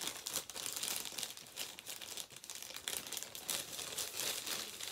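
Yellow plastic mailing bag crinkling as it is handled, in irregular crackles.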